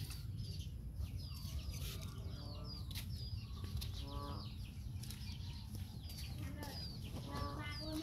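Caged young mynas chirping: a busy run of short, high, downward-sliding chirps, with a lower, fuller call about four seconds in and again near the end. A steady low rumble runs underneath.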